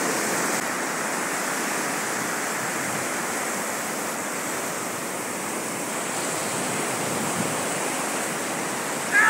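Ocean surf washing up a sandy beach: a steady rush of breaking waves.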